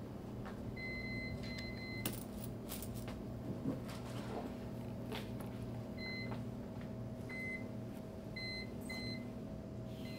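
Electronic keypad beeps from a laundromat washer's control panel: a series of short high beeps, some in quick pairs, over a steady low machine hum, with a few sharp clicks.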